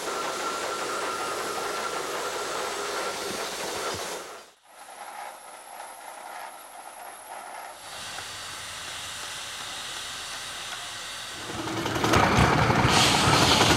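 Steam hissing steadily from a steam-powered railroad wreck crane at work. It cuts out briefly about four and a half seconds in, comes back quieter, then turns louder with a heavier rumble near the end.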